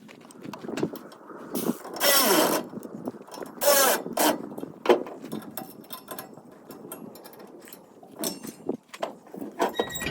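Loose hardware and saw parts being handled and sorted: scattered clicks and knocks, with a brief louder rustling scrape about two seconds in and another near four seconds.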